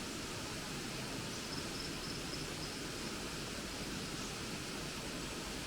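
Hebbe Falls' water rushing: a steady, even hiss that does not change.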